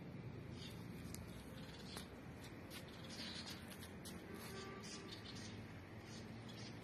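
Faint, irregular rustling and scratching, many small quick scrapes over a steady low background rumble.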